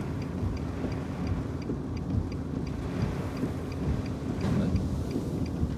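Severe storm wind buffeting the car and the microphone, a heavy continuous low rumble, with a faint steady ticking behind it.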